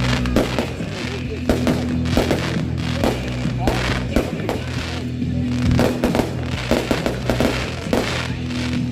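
Fireworks going off in quick succession, sharp bangs and crackles several times a second, over music with steady low held notes.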